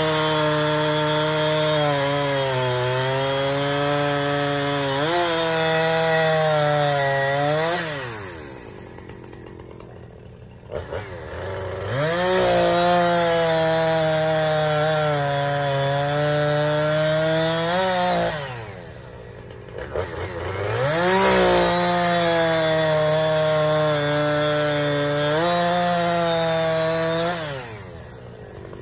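Husqvarna two-stroke chainsaw bucking a log into rounds: three long cuts at full throttle, the engine note dipping under load and climbing as each cut breaks through. Between cuts it drops back to idle.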